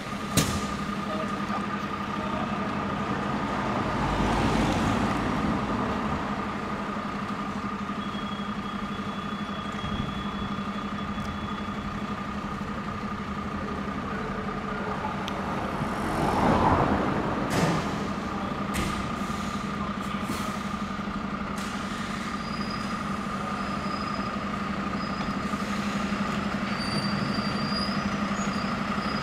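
Diesel engine of a MAN fire engine running steadily at idle in the station bay, with a constant tone held over it. Twice a louder rushing swell rises and fades, once a few seconds in and once just past halfway.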